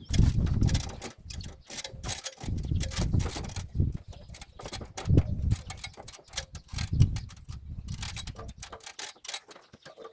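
Irregular knocking, scraping and clattering as loose rubble and old mortar are cleared by hand from the top of a chimney, with heavy thumps underneath.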